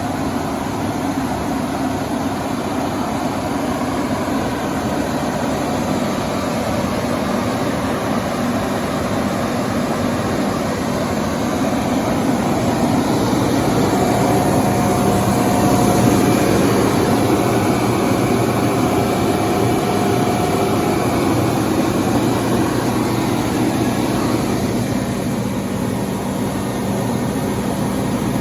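Kohler 350 kW diesel generator set running steadily, its Detroit Diesel 92 series two-stroke engine under way; it gets a little louder in the middle, with a faint steady whine for several seconds.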